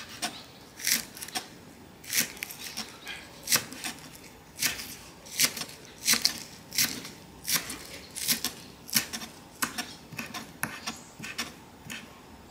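Knife slicing green onions on a wooden cutting board: a steady rhythm of crisp cuts through the stalks onto the board, a little over one a second, lighter toward the end.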